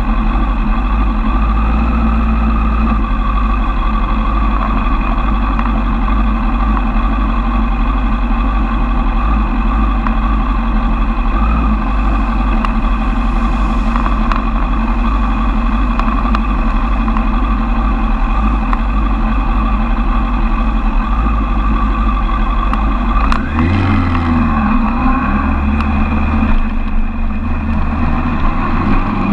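Suzuki Bandit 1200's inline-four engine idling steadily. About 23 seconds in it pulls away, rising in pitch through a couple of quick gear changes.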